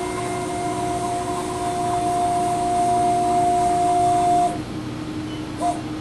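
Steady electric motor whine from the Sprint CNC-300 video measuring machine's drives as it runs its automatic measurement program, cutting off about four and a half seconds in and sounding again briefly near the end.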